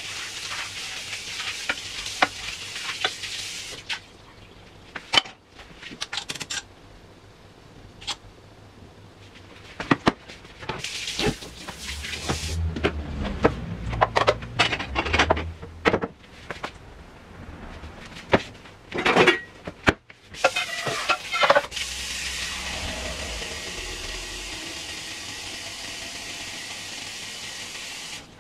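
Dishes being washed by hand at a kitchen sink: tap water running, broken up by repeated clinks and clatters of crockery and utensils. Through the middle the clatter of dishes being handled dominates, and for the last several seconds the tap runs steadily.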